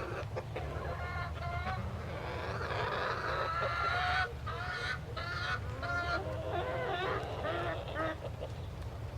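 Farmyard fowl calling: a string of short, repeated calls, several overlapping, over a steady low hum.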